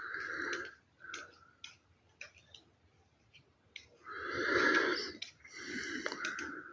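Small scissors snipping paper, a few sharp light clicks, among several soft breathy sounds each up to about a second long.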